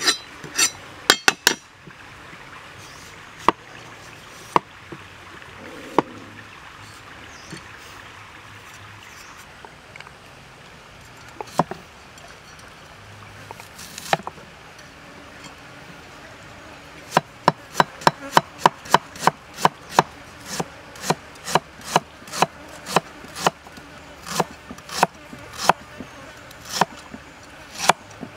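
Cleaver blade chopping galangal root on a round wooden chopping block: a few scattered sharp knocks, then past the middle a quick, even run of chops at about two to three a second. A steady background hiss lies underneath.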